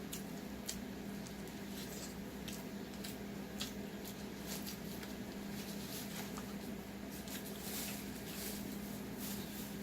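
Close-up wet eating sounds of someone chewing and handling seafood boil: scattered irregular smacks, squishes and clicks, over a steady low hum.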